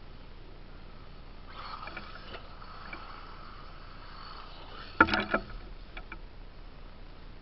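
Electric RC buggies' brushless motors whining as they drive, then about five seconds in a sudden loud clatter as a buggy crashes or lands hard, followed by a couple of smaller knocks.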